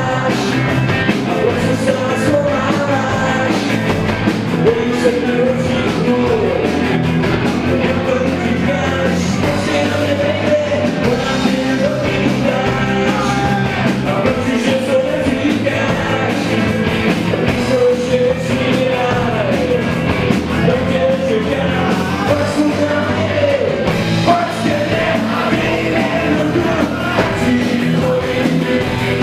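A rock band playing live: a man singing lead over electric guitars, electric bass and drums.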